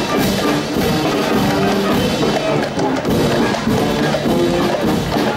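A marching band plays a parade march with a steady drum beat.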